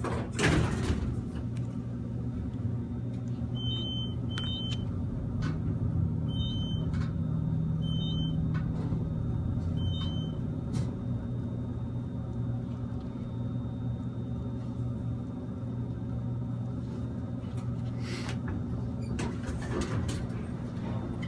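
Elevator car running, a steady low hum and rumble inside the small steel cab. About five short, faint high beeps sound in its middle stretch, and there are a couple of knocks near the start and near the end.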